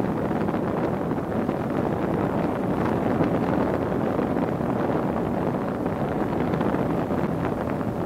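Wind buffeting the microphone on a moving motorboat, with the boat's motor running steadily underneath.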